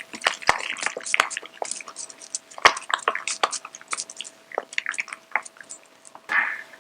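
Thick wet spice-paste marinade being stirred briskly in a small bowl: quick, irregular wet clicks and squelches.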